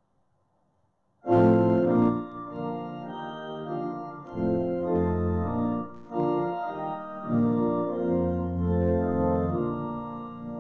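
Church pipe organ starting with a sudden loud chord about a second in, then playing a run of sustained chords that change every second or two.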